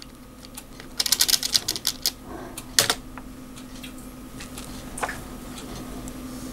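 Computer keyboard being typed on: a quick run of key clicks about a second in, then single clicks near three and five seconds, over a steady low hum.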